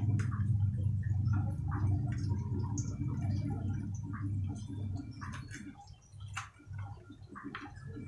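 Knife clicking and scraping on a ceramic plate while fried tofu is cut into cubes, a few sharp clicks scattered through, over a low rumble that fades about six seconds in.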